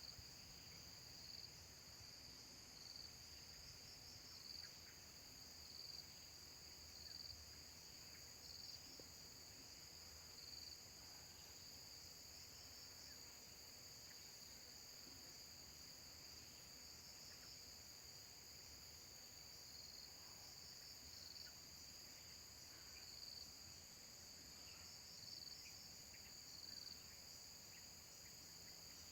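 Faint, steady high-pitched drone of insects, crickets or cicadas. A short high note repeats about every second and a half for the first third, stops, and comes back near the end.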